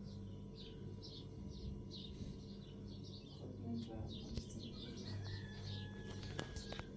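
Small birds chirping over and over: short, high, falling chirps, two or three a second, over a low steady hum.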